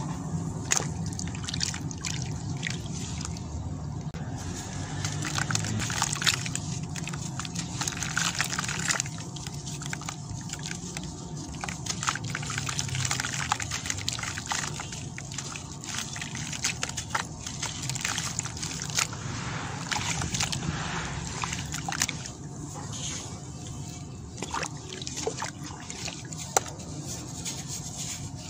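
Hands crumbling soaked sand-and-cement chunks in a basin of water: water sloshing and trickling, with frequent short splashes and gritty crunches as pieces break apart and drop in.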